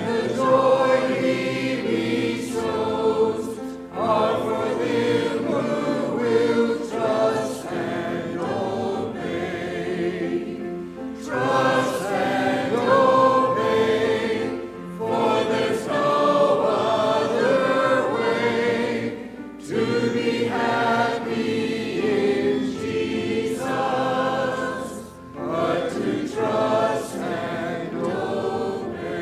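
Many voices singing a hymn together in long phrases, with brief breaths between them.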